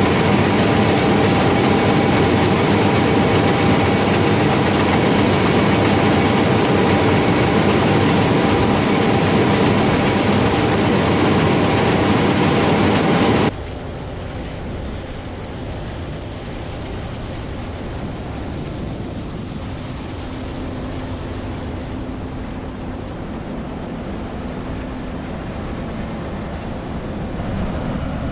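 John Deere S770i combine harvester running steadily as it harvests rice: the six-cylinder twin-turbo diesel and threshing machinery give a continuous drone with steady tones. About halfway through the sound drops suddenly to a quieter, steady machine drone.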